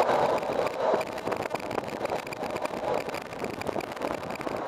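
Jet noise from a Boeing 737-800: a steady rushing noise with a faint high whine, easing off slightly after the first second.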